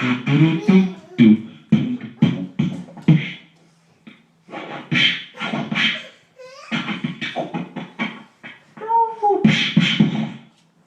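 Man beatboxing: a rhythm of vocal kick-and-snare hits, about two to three a second, that breaks off briefly twice, with a swooping vocal sound effect near the end.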